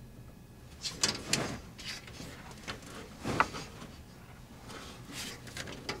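Cables and small plastic connectors being handled against a sheet-metal computer case: irregular scrapes, rustles and clicks, the loudest a little past the midpoint.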